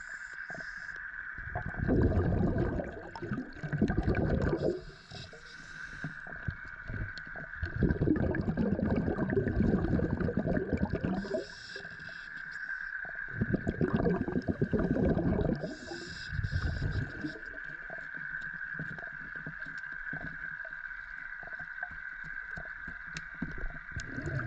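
Underwater sound of scuba diving: three long bursts of exhaled regulator bubbles a few seconds apart, with short hisses of inhaled breath between them. A steady high-pitched tone and scattered faint clicks run underneath.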